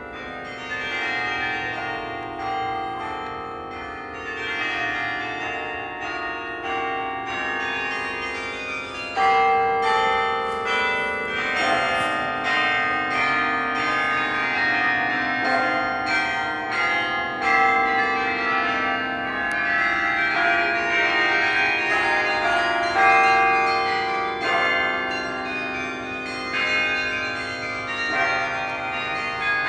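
Bok Tower's 60-bell carillon playing a tune, its bronze bells struck in melody notes and chords that ring on and overlap one another. The playing grows louder about nine seconds in.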